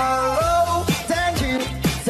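Upbeat background pop music: a pitched melody over drum hits.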